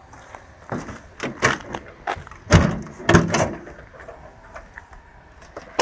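Car bonnet being released and lifted: a series of clunks and knocks, the loudest about two and a half to three seconds in, and a sharp click near the end.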